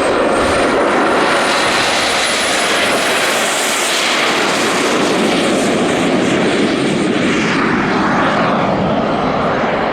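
Model F-104 Starfighter jet flying past under turbine power: a steady jet roar with a thin high whine that climbs a little, then sinks slightly, loudest about four seconds in.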